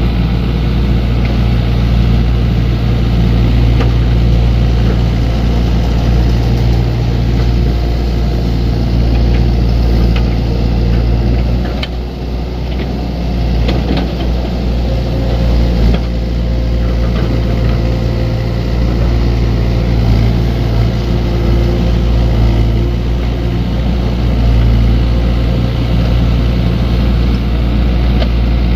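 Diesel engines of a mini bulldozer and mini excavator at work, a steady low rumble. The level dips briefly about twelve seconds in, with a few short knocks around then.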